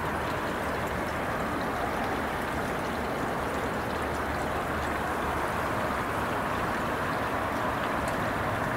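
Small trickles of water running steadily, an even splashing hiss of flowing water.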